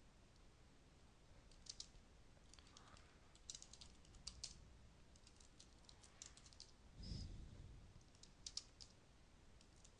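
Faint computer keyboard typing in short bursts of key clicks as debugger commands are entered, with a brief low thud about seven seconds in.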